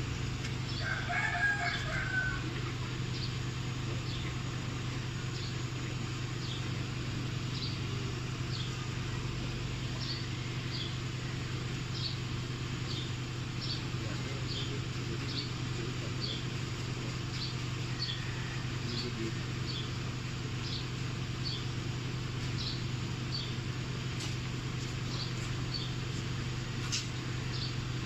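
A rooster crowing once, about a second in. Short high chirps repeat at an even pace under a steady low hum.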